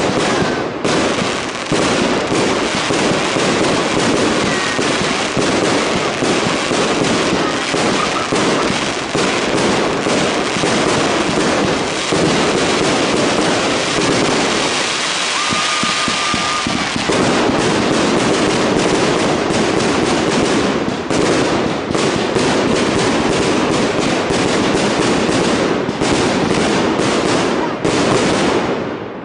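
Professional fireworks display going off in a dense, unbroken barrage of bursts and crackling, with a short steady whistle about halfway through.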